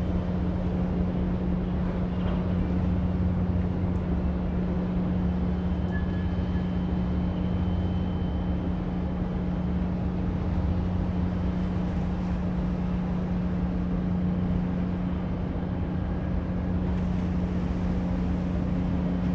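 Steady low engine drone: a constant, unchanging hum that holds at one pitch with no rise or fall.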